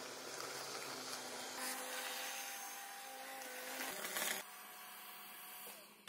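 Dreame Mova S20 Ultra robot vacuum running, a faint steady hum with a few thin whining tones. A brief swell comes about four seconds in, and then the sound drops quieter.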